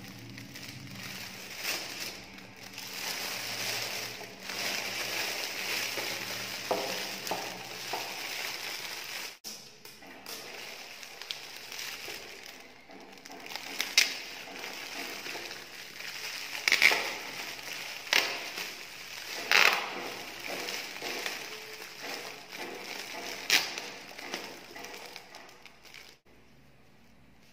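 Metallic foil gift-wrap film crinkling and rustling as it is gathered and scrunched around a mug, with several sharper crackles; it dies down near the end.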